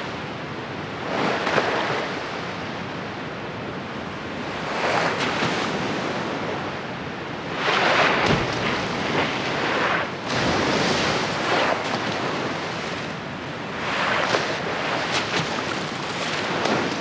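Ocean waves washing and splashing, swelling in surges every few seconds, with wind.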